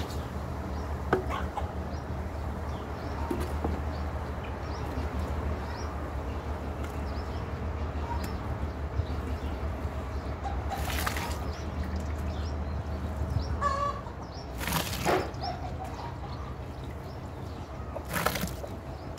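Hot, boiled old beeswax comb scooped from a steaming barrel with an enamel pot and tipped into a burlap sack for pressing, making three wet sloshing splashes in the second half. Hens cluck, with one short call just before the middle. A steady low rumble stops a little past halfway.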